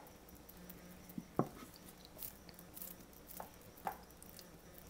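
Ketchup bottle held upside down and squeezed over a glass measuring cup: a few faint, scattered clicks and soft squelches, the loudest about a second and a half in, over a faint low steady hum.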